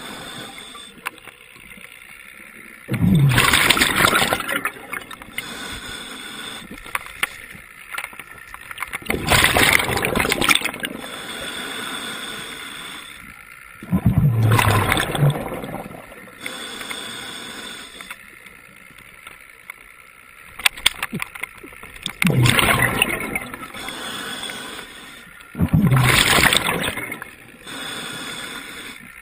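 Underwater gurgling picked up by the camera: five loud bursts of bubbling, each about a second and a half long and several seconds apart, over a steady low watery hiss, with a few sharp clicks about two thirds of the way through.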